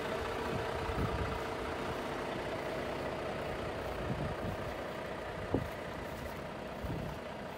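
A vehicle engine idling steadily, with a single sharp click about five and a half seconds in.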